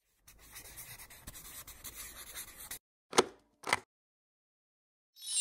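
A pen scratching across paper, as in handwriting, for about two and a half seconds, then two short, louder strokes about half a second apart. A bright chime starts right at the end.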